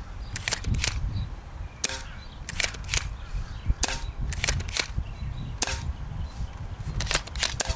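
Spring-powered pump-action airsoft shotgun (Smith & Wesson M3000) being pumped and fired again and again: a run of about a dozen sharp clicks and snaps, several in quick pairs, over a steady low rumble.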